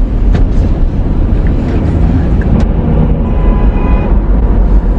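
Road noise inside a moving car: a steady, loud low rumble of engine and tyres, with a few light clicks.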